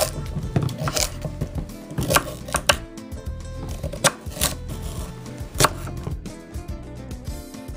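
Chef's knife chopping parsnips on a wooden cutting board: about eight sharp knocks at uneven intervals, over background music.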